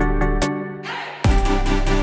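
Electronic background music with a steady beat. About half a second in, the bass drops out and a rising sweep builds. The full beat comes back in with heavy bass a little over a second in.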